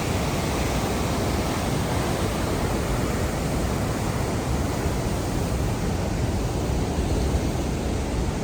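Yellowstone River waterfall rushing, a steady, unbroken wash of noise that holds even throughout.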